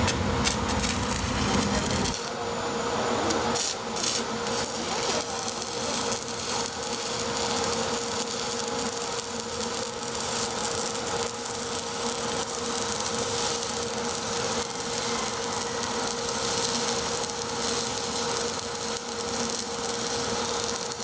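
Shielded metal arc (stick) welding on an inverter welder: the electrode arc crackles and sizzles steadily as a bead is run, with a steady hum underneath.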